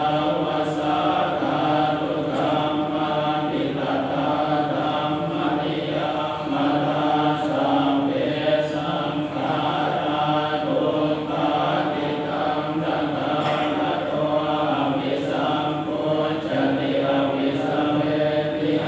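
Buddhist chanting: a continuous recitation held on a near-monotone pitch in long phrases, with brief breaths between them.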